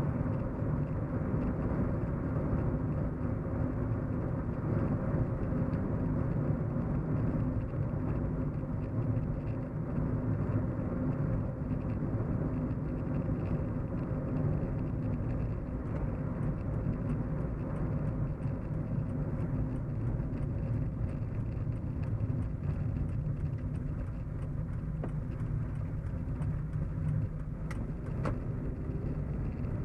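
Steady low hum and road rumble inside a moving car's cabin, engine and tyre noise running evenly.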